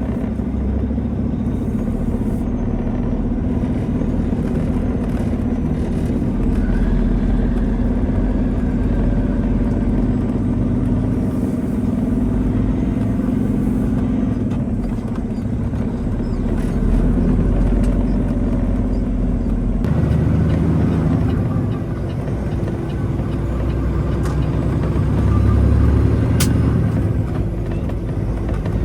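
Truck engine running steadily, a low drone whose note shifts about two-thirds of the way through.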